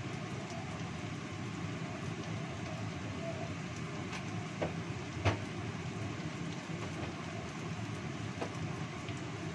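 Sliced shallots and garlic sizzling in hot oil in a wok, a steady crackling hiss with a few sharp pops, the loudest about five seconds in. The aromatics are close to turning fragrant.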